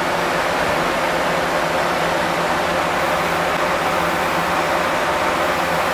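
Steady rushing machine noise with a low hum underneath, holding level throughout.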